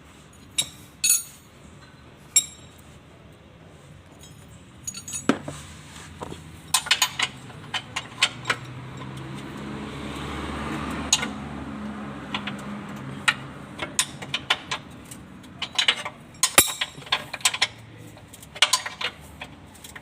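Metal tools clinking and tapping against metal parts in scattered sharp knocks, with a low rumble swelling and fading midway.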